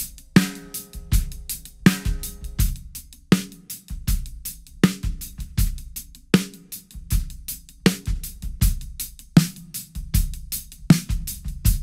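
A drum kit beat with bass drum, hi-hat and a snare backbeat about every second and a half, played on a PDP steel-shell snare drum. The snare first rings openly with overtones. Partway through it is muffled, first by a Remo sound control ring and then by a Big Fat Snare Drum Steve's Donut, which keeps the stick's attack but cuts the ring and tone.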